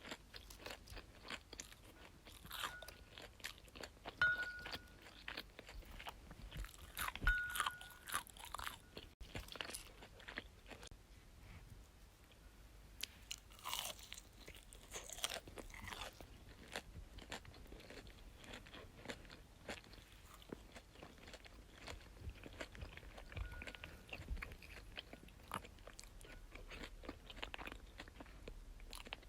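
A person chewing and biting crunchy food close to the microphone: irregular crisp crunches and small mouth clicks, the loudest bites a few seconds in and around seven seconds in.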